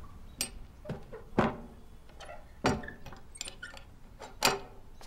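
A few scattered knocks and thumps. The three loudest come about a second and a half in, near three seconds and about four and a half seconds in.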